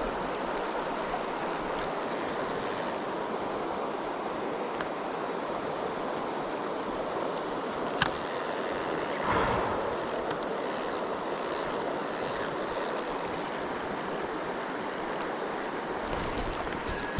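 Mountain stream water rushing steadily, with a single sharp click about eight seconds in and a short swell of sound just after.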